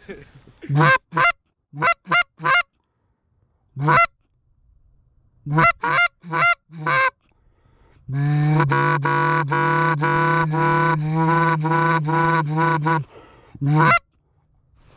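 Goose honks: about a dozen short, separate honks in the first seven seconds, then about five seconds of rapid, unbroken honking over a steady low drone, and one last honk near the end.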